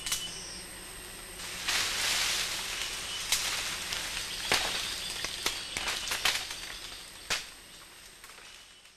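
Leaves rustling and twigs cracking as an orangutan handles and breaks branches, with a handful of sharp snaps; the sound fades away near the end.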